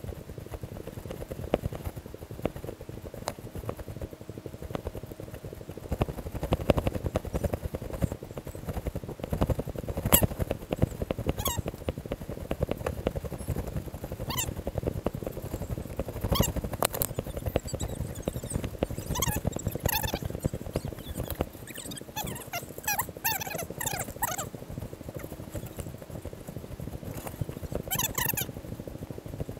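Footsteps crunching along a dry, straw-covered dirt path, with steady rustling and handling noise. In the second half comes a run of short, high chirps.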